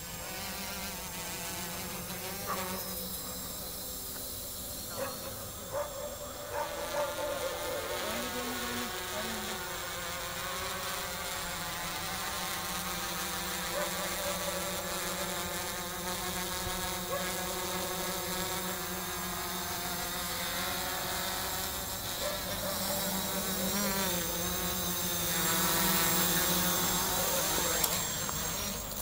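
Quadcopter's electric motors and propellers buzzing in flight, the pitch wavering as the throttle changes. It grows louder in the last few seconds.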